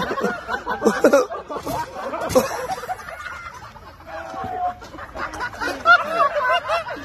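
Men laughing hard in repeated fits.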